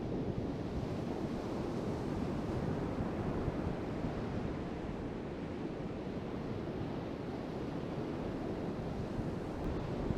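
Ocean surf washing in, mixed with strong wind buffeting the microphone: a steady rushing noise with a low rumble.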